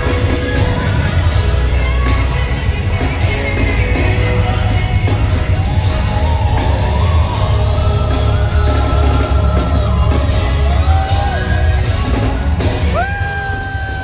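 A woman singing lead live over a band with heavy bass, heard from the audience of a large concert hall. Near the end she begins a long held high note.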